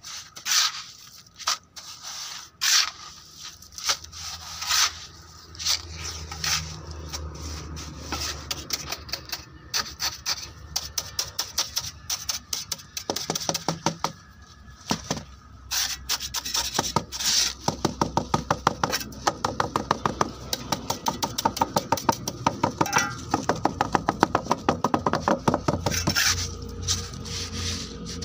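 Steel trowel scraping, knocking and tapping wet concrete into a steel tuff-tile mould, with a fast run of light taps from about two-thirds of the way in as the mix is worked down. A low steady hum runs underneath from early in.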